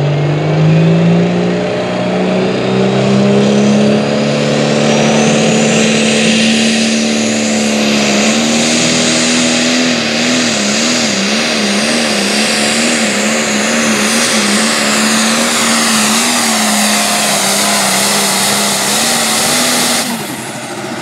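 Turbocharged diesel pro stock pulling tractor at full throttle, dragging the weight sled down the track. The engine note climbs at the launch and then holds high and steady, with a high whine rising alongside it. For a few seconds in the middle the engine note wavers up and down, and about a second before the end the engine drops off as the pull ends.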